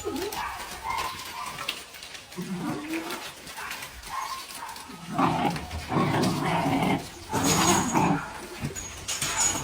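A dog making several drawn-out vocal calls, each about a second long, louder in the second half.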